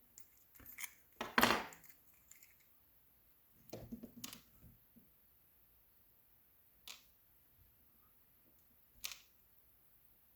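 Small metal parts of a disassembled Robur safety deposit box lock clicking and clinking as they are handled: a flurry of light clicks in the first couple of seconds, another around four seconds in, then single clicks twice near the end.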